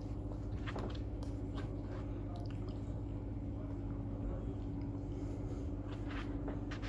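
Soft wet squishing and scattered light clicks as a runny egg-and-cheese banitsa filling is spread onto a filo pastry sheet, over a steady low hum.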